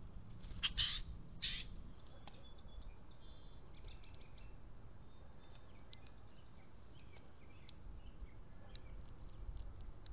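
Birds calling at a backyard feeder: two louder calls about a second in, then many short, high chirps scattered through the rest.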